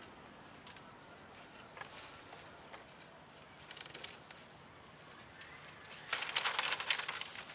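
Quiet outdoor background with a few faint knocks, then, about six seconds in, a dense rattle of thin split-bamboo strips clattering together as they are gathered up from a pile, lasting about a second.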